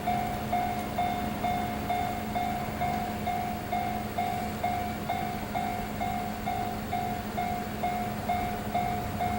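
Japanese level-crossing warning bell clanging steadily at about two strikes a second, over a low rumble and hum of railway traffic.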